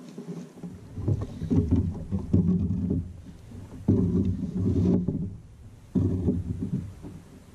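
Low, muffled knocks and rumbles in four uneven bursts: a landing net holding a pike being handled against a kayak's hull.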